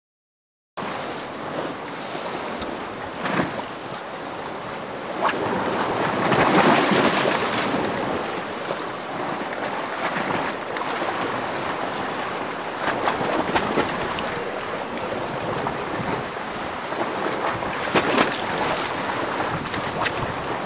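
Sea waves washing against a rocky shore, with wind on the microphone, starting about a second in; the surf swells louder about six seconds in.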